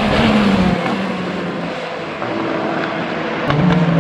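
Race cars passing at speed on the circuit. One engine note falls in pitch as the car goes by, then a second car's engine comes in loud about three and a half seconds in.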